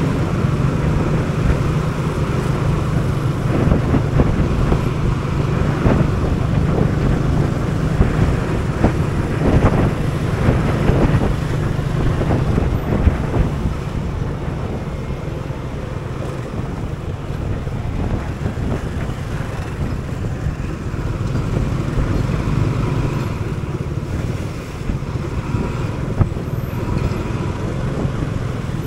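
Small motor scooter riding in city traffic: its engine running steadily, mixed with road and surrounding traffic noise.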